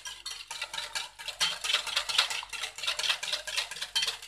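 Wire whisk beating liquid pancake batter in a glass bowl: fast, even strokes, several a second, scraping and clinking against the glass.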